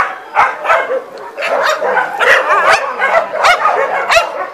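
Dogs barking rapidly and repeatedly, about ten barks at two to three a second, varying in pitch.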